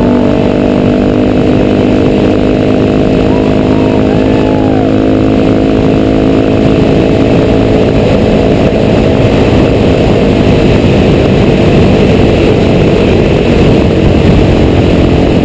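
KTM 690 SMC-R single-cylinder engine running at steady, unchanging revs through a Remus Hexacone titanium full exhaust system with no catalytic converter.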